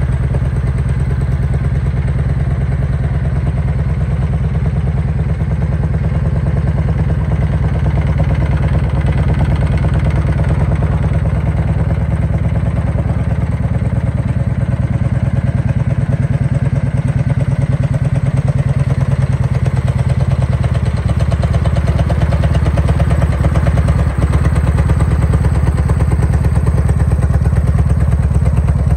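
1997 Harley-Davidson Ultra Classic's 1340 cc Evolution V-twin idling steadily.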